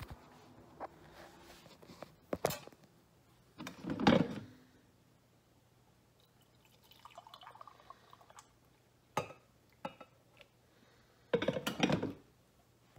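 Coffee pouring from a carafe into a ceramic mug in a short, faint trickle about halfway through. Around it are sharp clunks and knocks of the mug and pot on the counter; the loudest come about four seconds in and near the end.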